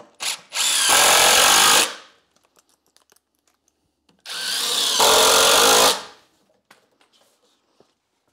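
Cordless drill driving screws into a 2x4 softwood frame: a short blip, then two runs of about a second and a half each, a few seconds apart, the second one speeding up before it holds steady.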